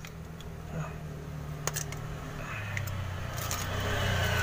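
Pliers clicking on the small metal lock clip of a parking brake shoe as it is bent open. A few light clicks sound over a steady low hum that grows louder about halfway through.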